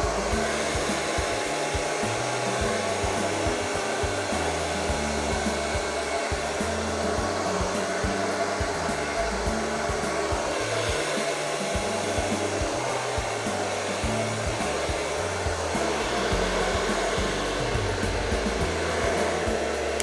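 Hair dryer running steadily at full blast, blowing poured acrylic paint across the canvas, over background music with shifting low notes.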